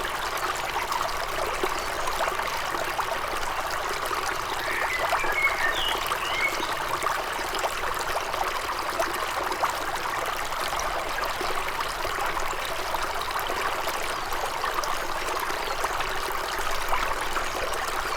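Small forest stream trickling and babbling steadily. A bird chirps briefly a few times about five seconds in.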